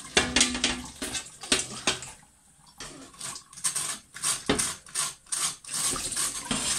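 Tap water splashing over a large oven glass panel being rinsed in a too-small kitchen sink, with irregular knocks as the glass is shifted about. There is a brief pause about two seconds in.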